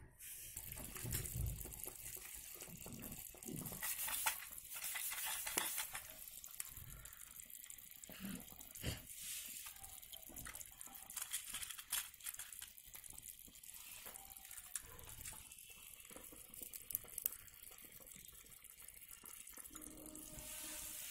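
Faint steady hiss of water heating in a tiny pot, with scattered clicks and rustles as a small plastic box is opened and dry noodles are dropped into the water.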